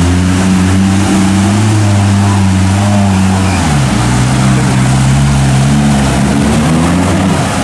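Off-road vehicle engine running steadily under load, its engine speed shifting a little before the halfway point.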